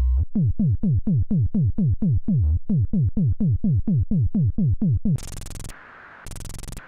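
Behringer CAT analog synthesizer loop: a low held note, then a fast run of downward-sweeping zaps, about four a second, ending about five seconds in with two short bursts of noise.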